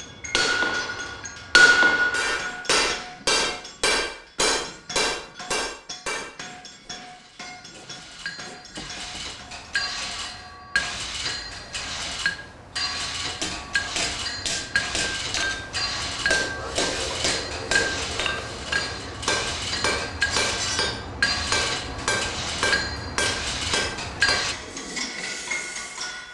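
Hammer blows on metal at an anvil, each strike ringing, about two a second. From about ten seconds in the blows come quicker and closer together over a low steady hum.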